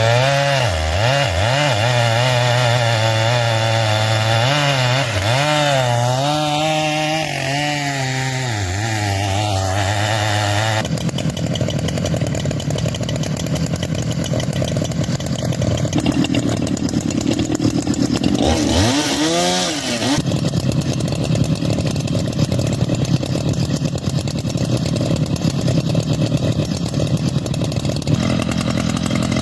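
Gasoline chainsaws running and cutting wood, the engine pitch dipping and rising as the chain bites under load. The sound changes abruptly about eleven seconds in and again near twenty seconds.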